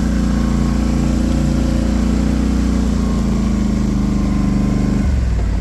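Polaris Sportsman 850 ATV's twin-cylinder engine running steadily, its pitch dropping suddenly about five seconds in.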